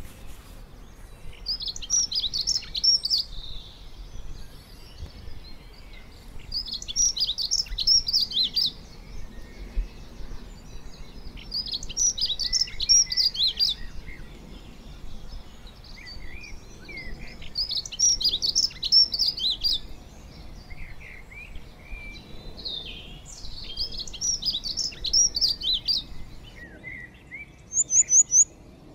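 A songbird singing the same phrase of rapid high notes five times, about every five to six seconds, with softer, lower calls between phrases and a short, fast run of very high notes near the end.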